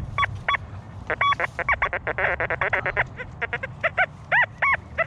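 Geese honking: a rapid run of short calls, each rising and falling in pitch.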